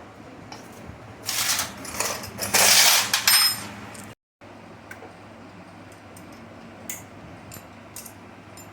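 Metal tools and parts clattering and jangling for about two seconds, with a brief metallic ring, then a few light clicks.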